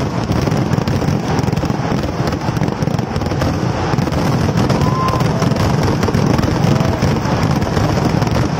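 Kerala temple fireworks (vedikkettu) going off as a dense, unbroken barrage, the cracks of the bursts running together into one continuous loud crackle.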